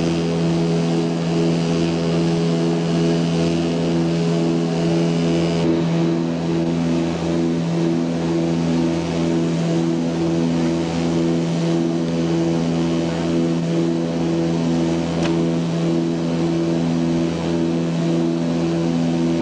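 Antonov An-24's two turboprop engines and propellers droning inside the cabin in flight: a steady low hum with a throbbing beat about twice a second.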